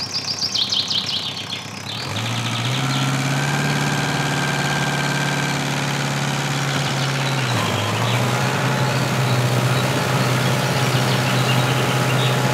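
A miniature model tractor runs with a steady engine-like hum. The hum starts about two seconds in, rises a step soon after, and dips briefly midway. Birds chirp in the first second or so.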